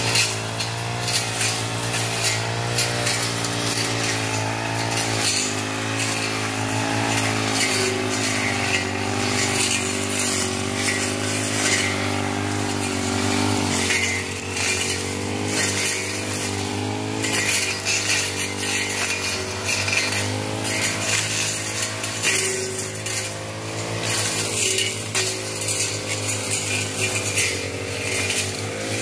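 Petrol brush cutter engine running steadily, its pitch wavering, as the blade cuts through grass and brush.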